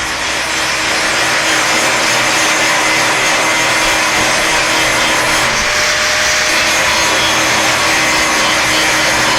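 Electric arc welding, running steadily, as steel pieces are welded onto the steel lid of a water-heater barbecue.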